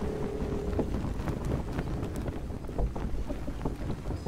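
Wind rumbling on the microphone over water lapping among floating ice, with many small irregular clicks. A steady low hum stops about a second in.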